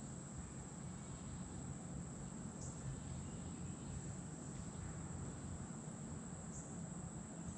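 Insects, crickets by their sound, trilling in one steady, continuous high-pitched drone, with two short high notes a few seconds apart over low background noise.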